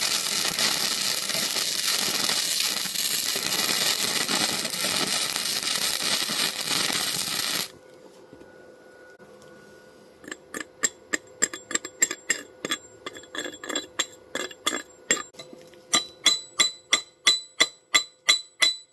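Wire-feed welder arc running as a steady, loud crackling hiss for about eight seconds, then cutting off. After a short lull comes a regular run of sharp, ringing metallic taps, about two to three a second.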